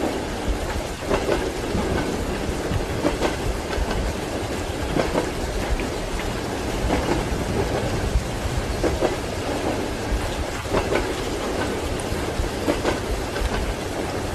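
Train wheels clacking over rail joints about once a second, heard from inside a passenger compartment, over a steady rumble of the running train and rain.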